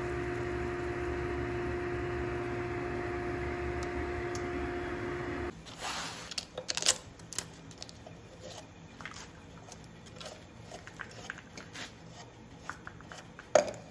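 Drill press running with a steady hum while counterboring a screw hole in a wooden block; it cuts off suddenly about five seconds in. Light clicks and rustles of wood shavings being handled on the bench follow.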